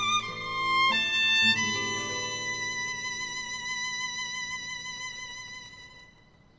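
Slow, sad background music: a violin melody over lower sustained notes. It moves through a few notes, then settles on one long held note that fades out near the end.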